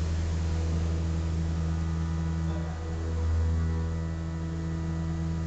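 Haas CNC vertical mill milling a 1018 steel plate under flood coolant: a steady low hum with several steady higher tones from the spindle and cutter over a light hiss of spraying coolant, swelling briefly about three seconds in.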